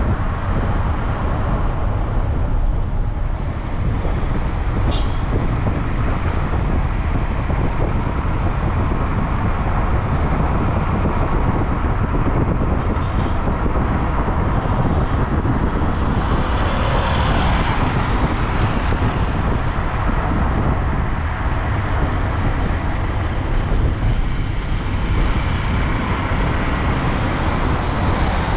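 Steady road and traffic noise heard from a moving vehicle, with a brief brighter hiss a little past the middle.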